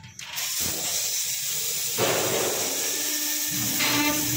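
Multi-function CNC panel drilling machine starting its cycle: a steady hiss comes on just after the start and thickens about two seconds in, and a steady hum joins about three seconds in.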